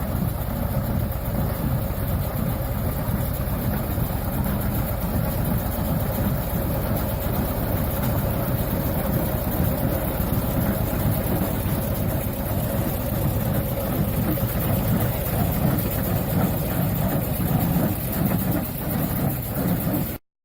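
A vehicle engine running steadily under heavy wind rumble on the microphone.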